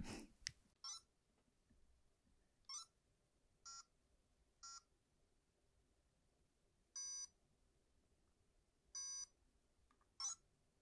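Handheld virtual-pet toy (Tamagotchi-style keychain game) beeping as its buttons are pressed: several short electronic blips, then two longer steady beeps about two seconds apart and a final short blip. A short soft noise right at the start.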